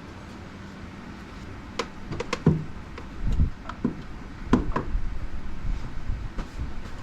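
Handling noise from tools and parts: a few sharp clicks and knocks about two seconds in, more knocks and thuds through the middle, then a louder, steadier clatter to the end.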